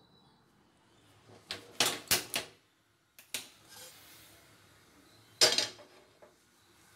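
Cookware clattering: a quick run of knocks and clinks, then the loudest clank about five and a half seconds in as a flat non-stick tawa pan is set down on the gas burner's metal grate.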